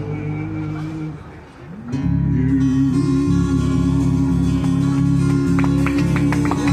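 Live band music led by guitar, settling about two seconds in onto a long held final chord, with a few claps starting near the end as the song finishes.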